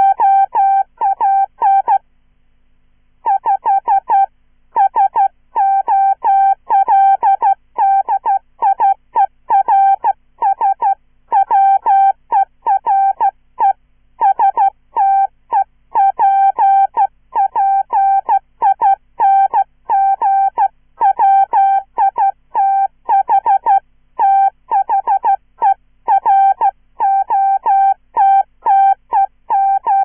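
Morse code at about 15 words per minute, hand-keyed on a straight key and sounded as a synthesized "chirpy" beep: a fast stream of short dits and longer dahs on one steady pitch. The stream stops for about a second a couple of seconds in, a space between words, then runs on.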